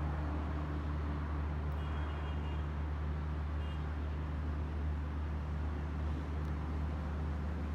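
A vehicle engine running steadily, a constant low hum under a haze of road noise, with two faint short high tones about two seconds and about three and a half seconds in.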